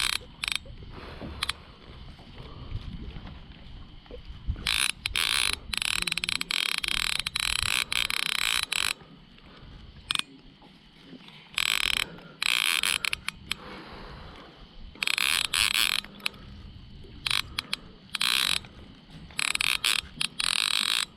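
Fishing reel's drag buzzing in a series of runs, each from about half a second to two seconds long, as a hooked fish under the boat pulls line off the reel.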